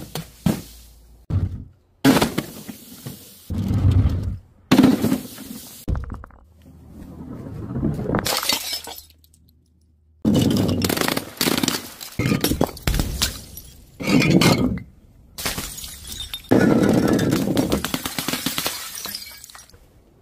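A run of objects dropped from height and smashing one after another: glass breaking and shattering, among other sharp impacts and pops, with a brief pause about halfway.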